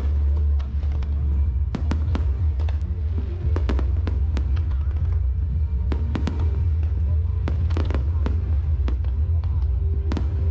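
Aerial fireworks display going off: many sharp bangs and crackles at irregular intervals over a continuous deep rumble, with music playing along with the show.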